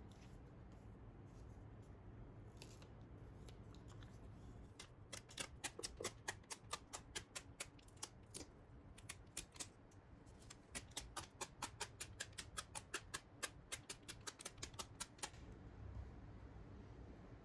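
A quick run of light sharp taps, about four or five a second. They start about five seconds in, pause briefly near the middle and stop a couple of seconds before the end.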